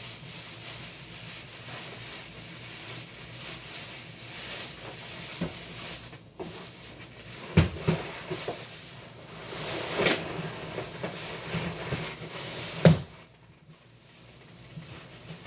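Thin plastic trash bags being handled and pulled into one another, rustling steadily, with a couple of sharp knocks, the loudest near the end.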